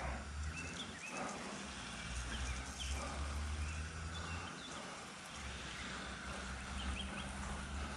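Quiet outdoor background: a low rumble that drops away briefly twice, with a few faint, short high chirps.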